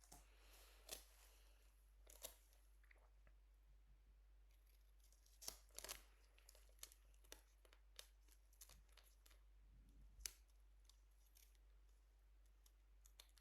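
Sterile scissors snipping a sheet of adhesive steri-strips into small strips: quiet, separate sharp snips with soft handling and crinkling of the sheet between them.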